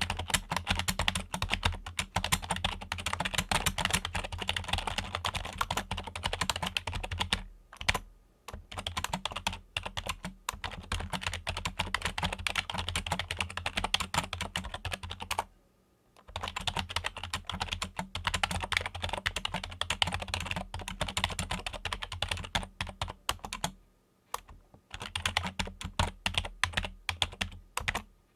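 Fingers typing quickly on a Logitech computer keyboard: rapid runs of key clicks, broken by short pauses about 8, 16 and 24 seconds in.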